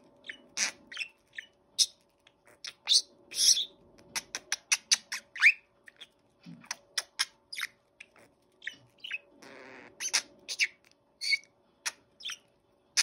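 Budgerigar chattering: a rapid, irregular run of short high chirps and clicks, with a brief scratchy rasp about ten seconds in.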